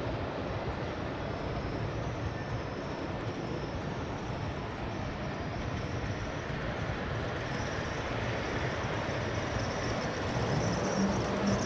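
G scale model train running along the track, a steady rumble of wheels and motor heard from on board. About ten seconds in, a low hum grows louder as a second model locomotive comes by on the next track.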